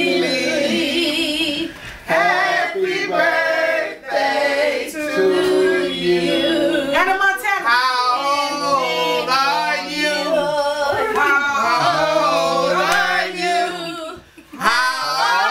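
A group of people singing a birthday song together unaccompanied, men's, women's and a child's voices mixed, with a short break in the singing near the end.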